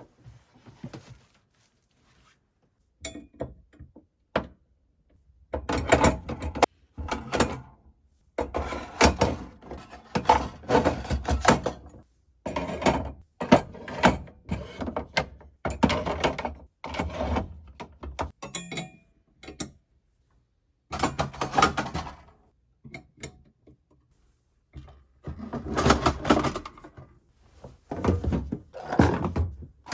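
Irregular knocking, clattering and thunking as hard objects are handled and bumped, in bursts with short pauses between.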